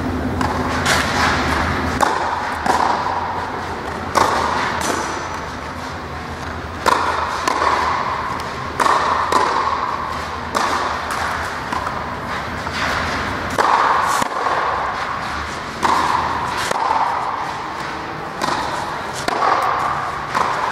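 Tennis balls being struck with a racquet and bouncing on the court during a rally drill: a sharp knock every second or two, each with a short echo from the indoor hall.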